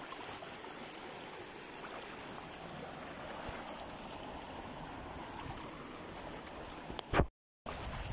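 Shallow river running over rocks: a steady rush of flowing water. Near the end there is a brief loud bump, and then the sound cuts out completely for a moment.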